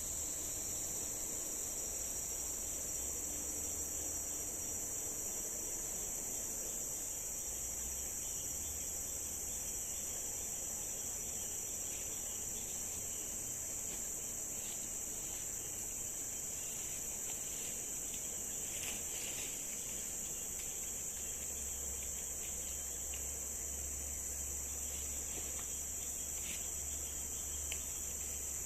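Steady, high-pitched, unbroken drone of a forest insect chorus, with a few faint ticks and rustles now and then.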